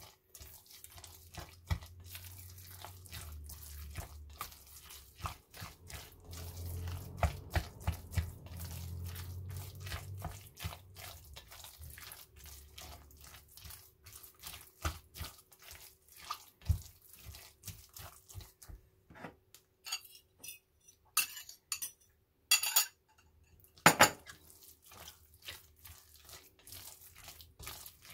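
Kitchen utensils knocking and clicking against a bowl: many small irregular taps as the tofu mixture for ganmodoki is worked, with a low rumble from about 3 to 10 seconds in and one louder knock near the end.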